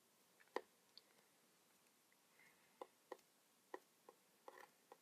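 Near silence broken by faint, irregular small clicks and taps, about eight in all: hands handling and twisting headphone wires onto a replacement jack.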